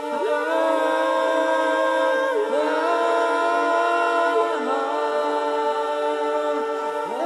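A cappella choral singing: several voices hold sustained chords that shift to new notes every couple of seconds, sliding into each new note.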